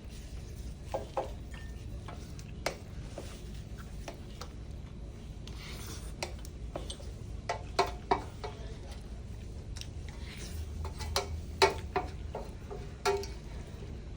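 Eating utensils clinking and scraping against bowls in scattered, irregular clinks, a few in quick succession about eight seconds in and again toward the end, over a low steady room hum.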